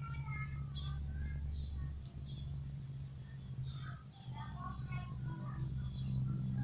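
Field insects, crickets by the sound of it, trilling steadily in a rapid, even pulse, with scattered short bird chirps over it and a low steady hum underneath.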